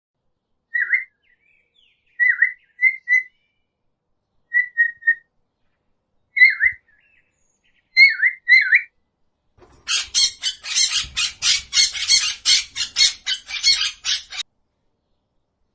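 Bird calls: short, clear downward-slurred chirps in groups of one to three, then a harsh, rapid chattering run of about five calls a second lasting about five seconds.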